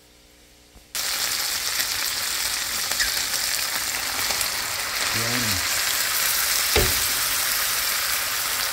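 Diced chicken frying in a pan, a loud, steady sizzle that starts abruptly about a second in as diced raw potatoes are tipped into it. There is a single sharp knock about two-thirds of the way through.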